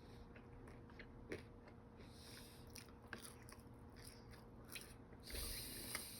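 Faint close-up chewing and biting of fries, with small wet mouth clicks and crunches, and a breathy hiss near the end.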